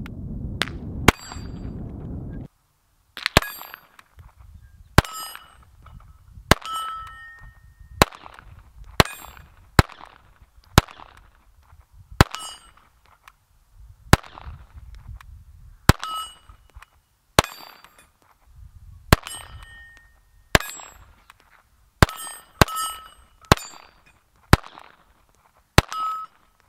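.22 LR semi-automatic pistol firing a steady string of about twenty shots, roughly one a second. Many shots are followed by the brief ring of a steel target plate being hit.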